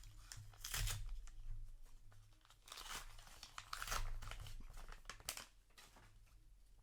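Paper booster-pack wrappers and trading cards being handled: several irregular bouts of crinkling and tearing paper.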